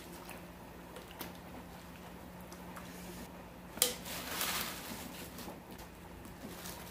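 Napa cabbage leaves being handled and packed into a stainless steel stockpot from a mesh colander: soft crisp rustling with a few light clicks, and one sharp knock about four seconds in followed by a second or so of louder rustling. A low steady hum runs underneath.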